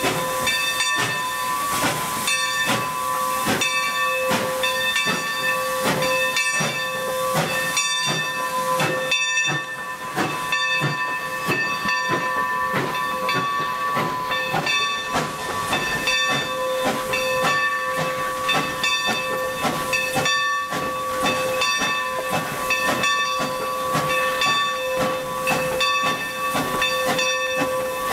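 Standing steam locomotive hissing steadily, with a steady high tone and an irregular quick run of soft beats over the hiss.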